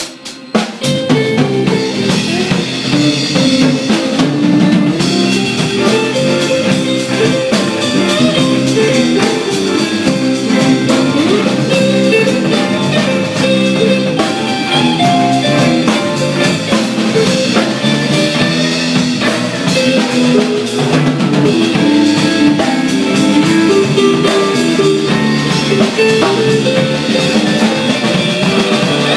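Live band playing at full volume, an instrumental stretch with drum kit and electric guitars. The music dips for a moment right at the start, then the whole band comes back in within the first second.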